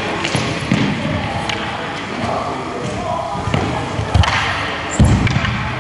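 Sharp wooden clacks of a bo staff striking a wooden sword in a paired form, with heavy thuds on a wooden floor, the loudest about five seconds in. Voices echo in a large hall.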